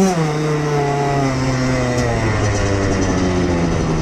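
Koshine XN 105 pit bike engine running under way, its pitch coming down from a rev right at the start and then holding nearly steady, easing slightly lower a couple of times.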